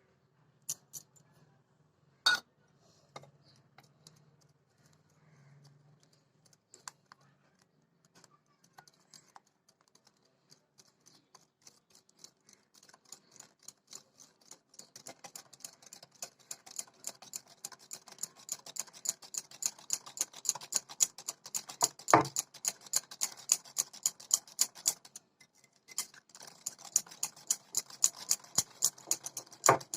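A sharp knock about two seconds in, like an egg being cracked, then an egg being beaten by hand into butter and sugar in a bowl, the utensil clicking rapidly against the bowl at about four or five strokes a second. The clicking grows louder and stops briefly near the end before going on.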